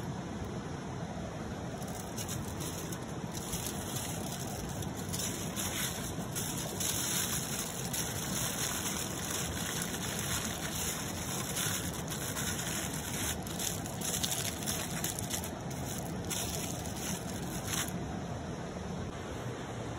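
Aluminium foil crinkling and rustling as it is folded and rolled into a parcel around a fish, from about two seconds in until near the end. A stream runs steadily underneath.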